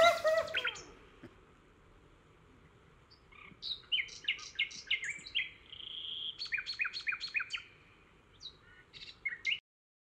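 Bird chirping: several runs of quick, falling high chirps, with one short held whistle in the middle, cutting off abruptly just before the end.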